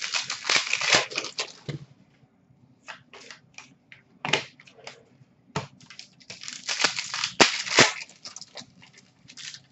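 Hockey card pack wrappers being torn open and crinkled by hand, in several short bursts of crackling rustle with quiet gaps between.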